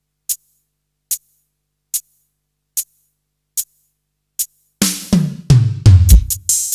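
Electronic percussion played on a Roland SPD-20 Octapad: a steady run of sharp, high ticks a little under a second apart marking a seven count, then from about five seconds in a fast drum roll on toms that falls in pitch, leading into the rhythm.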